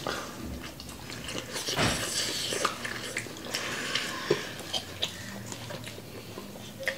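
Close-up chewing and biting sounds of two people eating chicken wings and pizza, with irregular clicks and smacks and a louder burst about two seconds in.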